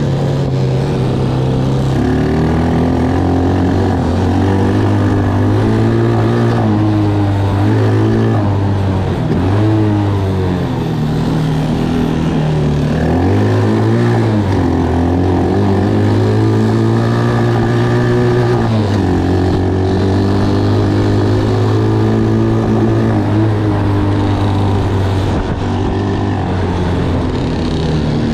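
Taotao ATV's small engine running under way, its pitch rising and falling as the throttle is worked, with brief let-offs about ten, fourteen and nineteen seconds in.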